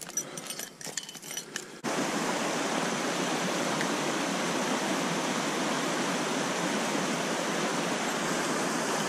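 Water rushing steadily over a shallow riffle in a small stream, cutting in abruptly about two seconds in. Before it, a few faint small clicks.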